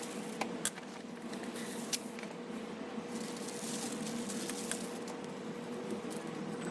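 Wood fire burning in a wood stove, a steady hiss with a few sharp crackling pops, over a faint steady hum.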